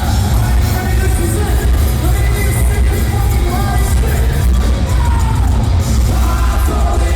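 Loud live heavy metal band playing with sung vocals over heavy bass and drums.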